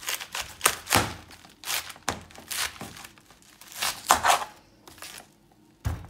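Kitchen knife cutting through a raw head of cabbage: a series of crisp, crackling crunches as the blade works through the tightly packed leaves, then a pause and a single thump near the end.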